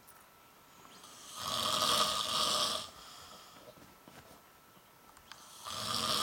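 A sleeping man snoring: one long snore lasting nearly two seconds, starting about a second in, a quiet pause, then the next snore beginning near the end.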